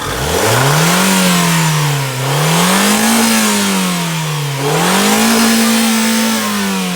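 Mazda car engine revved hard three times toward redline while its battery jump-starts another car. The revs hold high briefly each time, dip between them, and fall away near the end.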